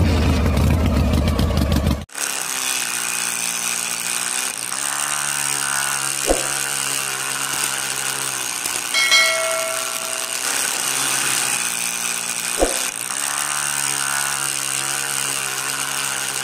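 Music for about two seconds, then a small electric hobby motor spinning a metal disc. It runs with a steady whine whose pitch sags and recovers a few times, with two sharp clicks.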